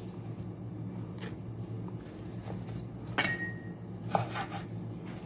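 A few light knocks and a clink as eggplant pieces and dishes are handled on the kitchen counter, the loudest clink about three seconds in, with a short ring after it. A steady low hum runs underneath.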